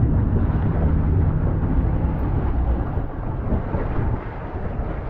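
Wind buffeting the camera microphone on an open boat: a heavy, steady low rumble with no clear events on top.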